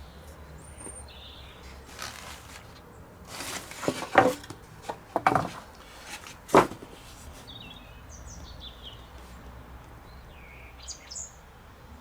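A few sharp knocks and taps of tools being put down and picked up on a workbench, the loudest about four and six and a half seconds in. Short bird chirps are heard in the background.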